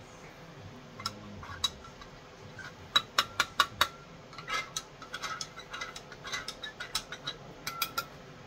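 A spoon stirring gravy in a Pyrex glass measuring jug, clinking against the glass. A quick run of sharp clinks comes about three seconds in, followed by many lighter clinks.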